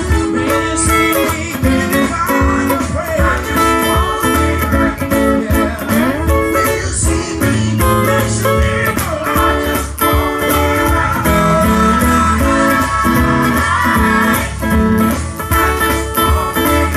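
Stratocaster-style electric guitar playing a gospel quartet song, over a fuller band mix with a bass line.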